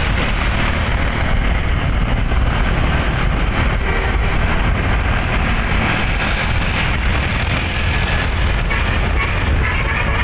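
Steady, loud low rumble of moving road vehicles: engine and road noise, with no horn sounding.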